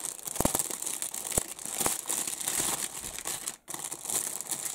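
Clear plastic kit bag crinkling and rustling as a plastic model sprue is handled inside it, with a few sharp clicks.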